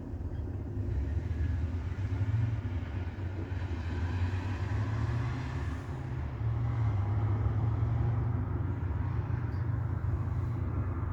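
Steady low rumble of a motor vehicle running, swelling and easing slightly, with no bangs or shots.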